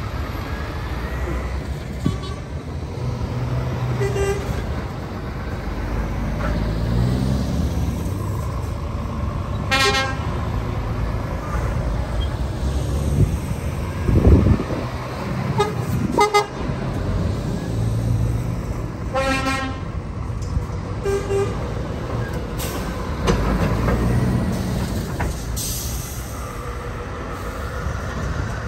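Heavy lorries driving past with their diesel engines running, their horns sounded in about six short toots spread through the stretch.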